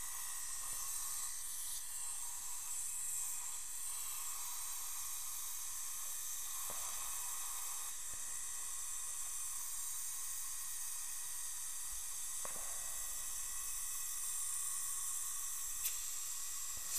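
Steady high hiss of dental operatory equipment, with faint steady whistling tones under it. One light click near the end.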